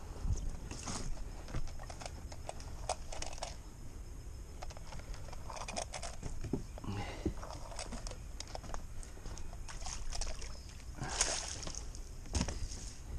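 Scattered light knocks and clicks of footsteps and handling on a wooden floating dock, over a steady low rumble, with a brief louder rush of noise near the end.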